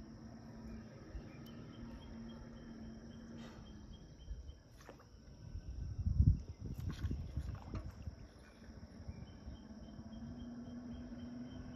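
Steady, high-pitched chorus of insects, over a faint low hum. A few low thumps and clicks come about halfway through.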